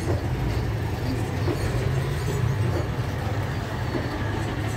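Mercedes truck's diesel engine idling, a steady low rumble that does not change.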